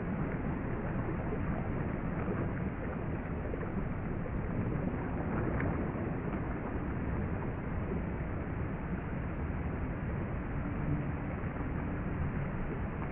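Churning water and rising air bubbles heard from beneath the surface: a steady low rushing noise with no distinct events.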